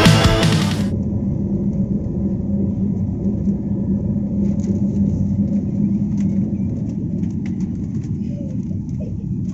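Music cuts off about a second in, leaving the steady low rumble of a passenger jet's cabin, with engine and airflow noise heard from inside, during takeoff and climb-out.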